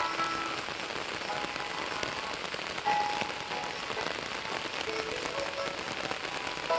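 Steady rain falling on the ground and leaves, with faint background music playing short melodic notes over it.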